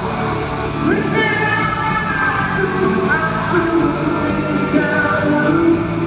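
Rock band playing live, electric guitar and drums with held chords and a steady cymbal beat, with singing over it.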